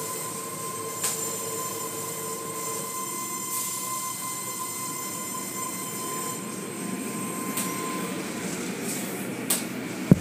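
Automatic car wash heard from inside the car: a steady rush of water spray and wash machinery, with a few brief knocks and a sharp click near the end.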